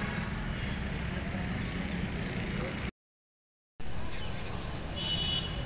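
Steady low rumble of busy street traffic (auto-rickshaws, buses and other engines) heard from a rooftop, cutting out completely for about a second about three seconds in.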